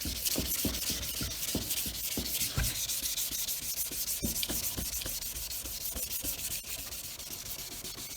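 Wet 1500-grit sandpaper rubbed back and forth over a yellowed plastic headlight lens, a steady scratchy hiss of fast strokes, sanding off the oxidised yellow layer.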